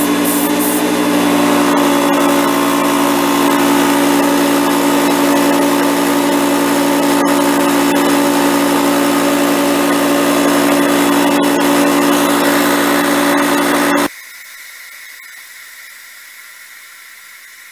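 Top Craft TCK 182 tankless portable air compressor running with a loud, steady hum, then switched off about fourteen seconds in; a quiet hiss of escaping air fades away after it stops. Having no pressure tank, it has to run nonstop to deliver air.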